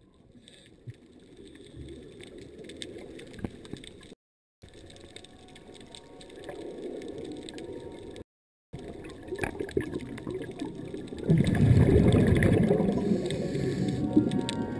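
Muffled underwater water noise, a low rumbling and gurgling wash, fading in at the start and getting clearly louder about eleven seconds in. It cuts out to silence twice, briefly, at edits.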